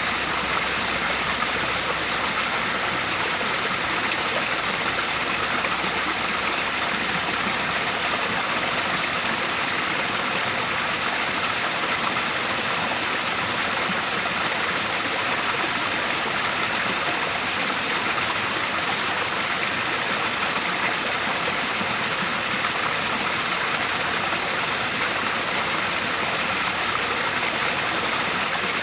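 Waterfall: a steady rush of falling water, more hiss than rumble, holding the same level throughout.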